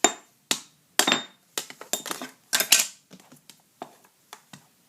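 Small dishes and cutlery being set down on a table: a quick run of sharp clicks and clinks, a couple ringing briefly, growing fainter after about three seconds.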